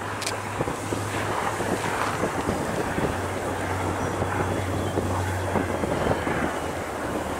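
Wind buffeting the microphone, over the steady low drone of distant EMD SD40-2 diesel locomotives, two-stroke V16s, working as they approach. A single short click comes just after the start.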